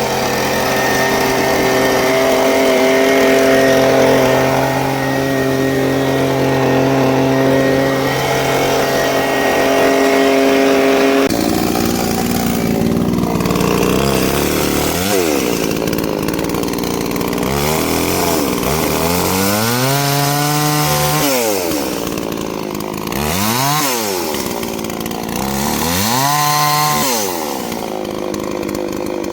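Gasoline chainsaw on an Alaskan chainsaw mill running steadily at high speed while it cuts through a log. About eleven seconds in, the sound changes abruptly, and then the engine is revved up and back down several times.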